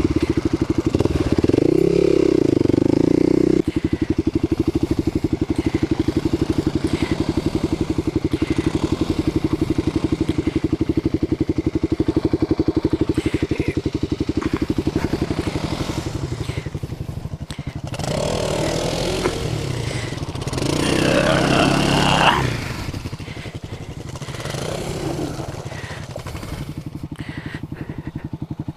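Kawasaki KLX250SF's single-cylinder four-stroke engine, revving briefly at the start, then chugging steadily at low speed. About two-thirds of the way in it revs up and drops back a couple of times.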